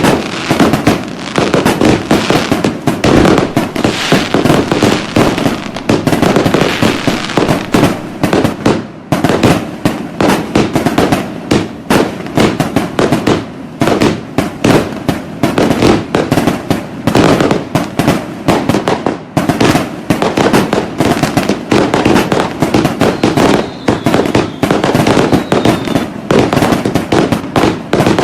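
A dense, continuous barrage of fireworks: rapid bangs and crackles, many per second, with no let-up. A faint falling whistle rises above it about three-quarters of the way through.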